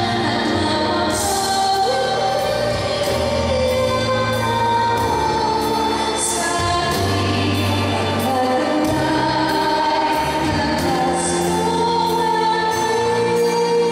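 A woman singing a church song into a microphone, with choir voices and instrumental accompaniment, held notes that change every second or two.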